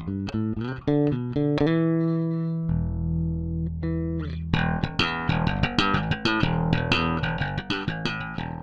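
Peavey Milestone III electric bass guitar being played: a quick run of plucked notes, two long held notes a couple of seconds in, then a fast string of sharply plucked notes.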